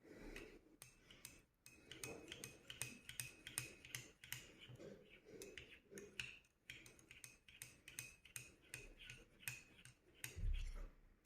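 A metal spoon stirring in a cup, clinking against the sides in quick, irregular light ticks with a faint ring, as ground cloves are mixed into lemon juice and warm water. A dull thump near the end.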